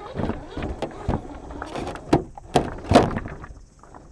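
Loose beach pebbles crunching and clacking irregularly, with three sharp clacks in the second half, then quieter near the end.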